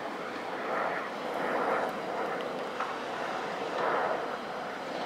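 Garaventa detachable chairlift running: a steady rushing whir that swells and fades every second or two.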